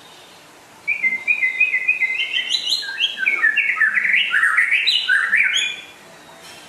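White-rumped shama (murai batu) singing: a fast, varied run of short notes jumping up and down in pitch, starting about a second in and stopping about a second before the end.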